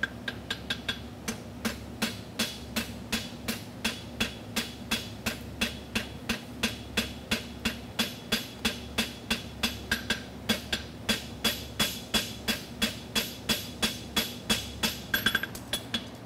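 A farrier's hammer strikes a red-hot steel horseshoe on the anvil edge at a steady pace of about two blows a second, each blow ringing off the anvil, as a toe clip is drawn out. There is a quick flurry of blows near the end. A steady buzz from an evaporative cooling fan runs underneath.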